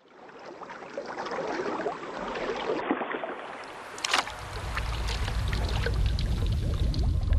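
Water splashing and lapping around a small boat, fading in at the start, with a sharp knock about four seconds in and a low rumble building from about halfway.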